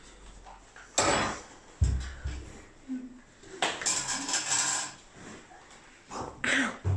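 Kitchen props clattering: a metal saucepan and spoons knocking against bowls and a tabletop, with a few sharp knocks and a spell of spoon scraping in a bowl about halfway through.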